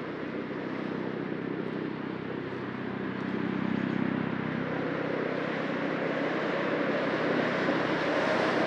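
Busy city street traffic: a steady rush of car engines and tyres as cars pass by, swelling louder about three seconds in and again near the end.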